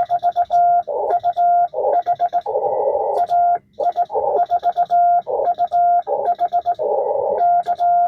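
Morse code being sent on a 1940 Vibroplex Blue Racer semi-automatic bug: a steady sidetone of about 700 Hz keyed in quick dots and longer dashes, with the key's contacts clicking along and radio band hiss rushing in between characters.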